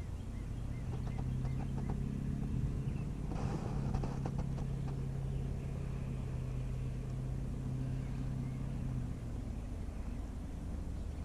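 Steady low hum of an engine running at one pitch, which stops about nine seconds in.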